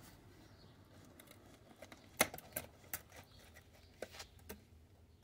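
Several light clicks and taps of metal and glass as the metal-framed glass housing of a Johnson Model D fare box is handled and worked apart, mostly in the second half.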